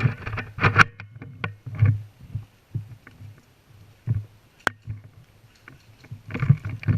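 Movement noise on a worn camera during an airsoft game: irregular low thumps and rustling of gear and clothing, with one sharp click about two-thirds of the way through.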